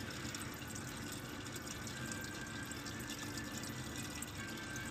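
Steady faint running-water sound over a low hum from an Urban Cultivator grow cabinet in its fill cycle.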